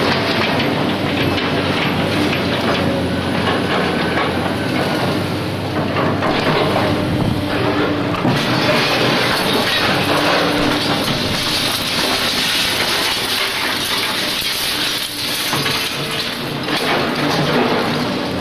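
Continuous loud mechanical rumble and clatter with hiss, without a break.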